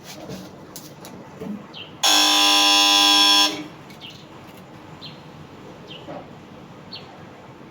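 A loud, steady buzz lasting about a second and a half, starting about two seconds in and cutting off abruptly, over faint short chirps repeating about once a second.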